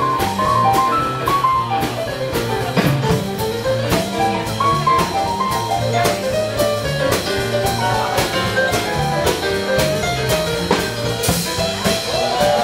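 Live swing jazz band playing, with upright bass, drum kit and keyboard; the drums keep a steady, even beat under a stepping melody line.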